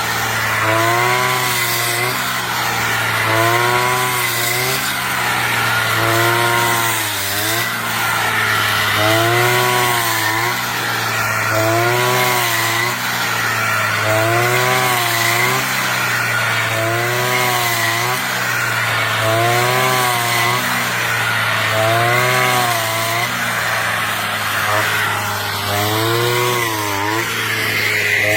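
Brush cutter engine running hard, its pitch dipping and recovering about every two seconds as the blade sweeps through rice stalks.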